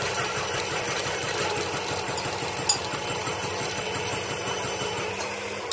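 Stick (shielded metal arc) welding on the steel side plate of an excavator bucket: the arc crackles and sizzles steadily over a low hum, and stops near the end.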